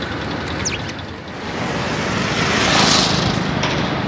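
Road traffic: a motor vehicle passing by, its engine and tyre noise swelling to a peak about three seconds in and then fading, over a steady low traffic rumble.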